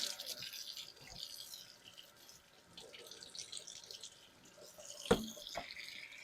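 Faint wet scraping and splashing of a straight razor being worked on a wet Shapton water stone, with a sharp knock about five seconds in.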